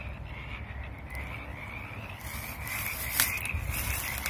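Frogs calling in a steady, high-pitched, pulsing night chorus, with a low rumble and a few light knocks from the camera being handled.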